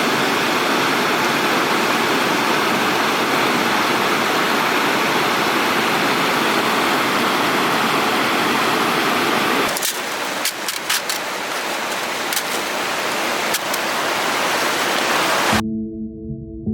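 Water rushing in a gorge stream, a loud steady noise. About ten seconds in it changes abruptly and continues a little quieter with a few sharp clicks. Near the end it cuts to music with sustained singing-bowl tones.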